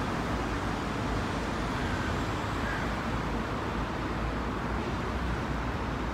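Steady low rumbling background noise with no distinct events, of the kind heard from distant road traffic.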